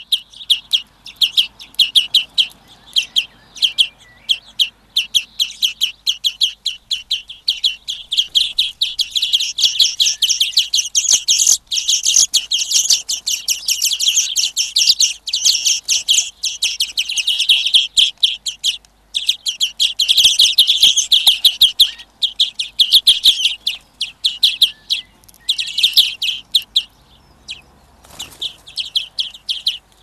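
Small songbirds chirping and twittering rapidly and continuously, with short pauses about two-thirds of the way through and again near the end.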